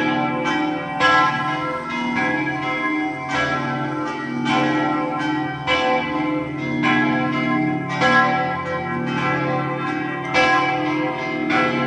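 Several church bells ringing together, their strikes overlapping. A loud strike comes roughly every second, with other bells striking in between, and the ringing carries on between strikes.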